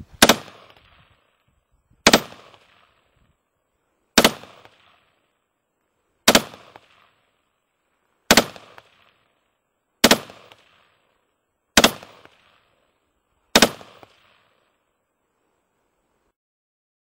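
Heckler & Koch HK416 5.56 mm rifle fired semi-automatic: eight single shots about two seconds apart, each followed by a short echo.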